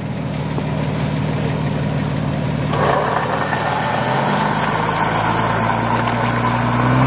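Off-road 4x4 engine running under load in deep snow. About three seconds in, a louder, rougher noise joins as it is given throttle. The vehicle is in reverse while being winched out.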